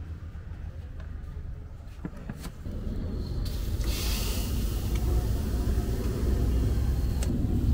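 Stall wok burner running with a steady low rumble under a steel wok, louder from about two and a half seconds in. About four seconds in, a brief sizzle as cooking oil is ladled into the hot wok.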